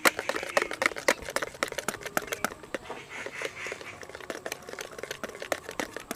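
Wire balloon whisk beating eggs, sugar and oil in a plastic bowl: rapid, irregular clicking and tapping of the wires against the bowl as the cake batter is whipped.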